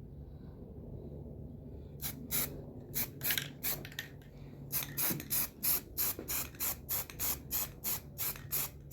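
Aerosol can of primer sprayed in short, repeated hissing bursts, starting about two seconds in and coming about three times a second, with a brief pause in the middle. A low steady hum runs underneath.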